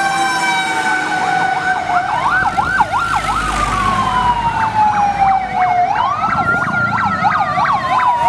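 Several fire engine sirens sounding together as fire trucks drive past: a fast yelp of about three sweeps a second over a slow wail that rises and falls twice, with a steady horn-like tone underneath.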